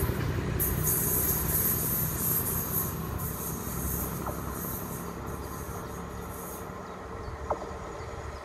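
DSB IC3 diesel multiple unit running through the station: low rumble of engines and wheels on the rails, with a high-pitched wheel hiss that stops about six and a half seconds in. The rumble then fades to a quieter run as the train draws away.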